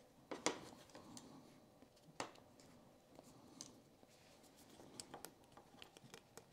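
Faint handling sounds: a few scattered light clicks and rustles as thin insulated wire is pulled through a small plastic end cap.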